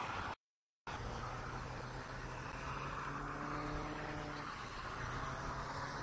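Steady low drone of distant engine noise, with the sound dropping out completely for about half a second near the start.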